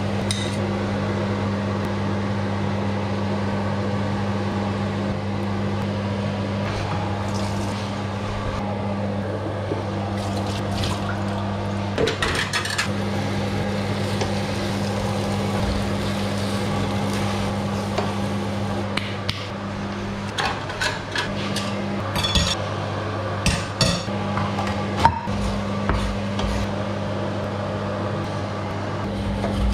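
Stainless steel saucepan on an induction hob: beaten egg poured in, then clinks and scrapes of a fork and wooden spoon against the pan, more frequent in the second half, over a steady low hum.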